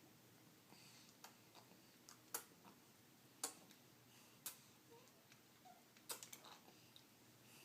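Faint, sharp clicks and ticks over near silence, several about a second apart and others more irregular.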